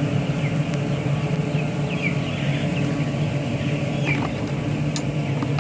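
Chicks peeping: scattered short, high, falling cheeps over a steady low mechanical hum, with one sharp click near the end.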